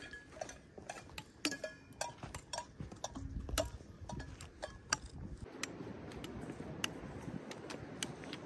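Trekking poles tapping on rock and boots on stony ground: an irregular run of sharp clicks, some with a brief metallic ring.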